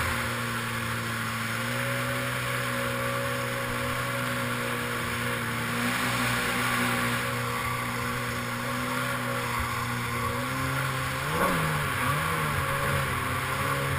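Yamaha SuperJet stand-up jet ski's two-stroke engine running at a steady pitch under way, over a rush of water spray; the engine note dips and climbs back briefly near the end.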